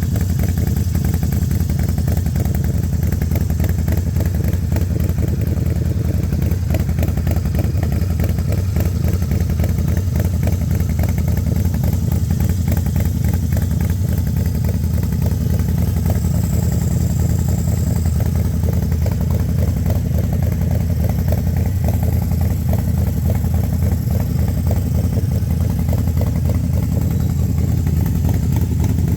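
Harley-Davidson Forty-Eight XL1200X's air-cooled 1200 cc V-twin running steadily at idle through a Vance & Hines Grenades full-system exhaust: a deep, even pulsing with no revving.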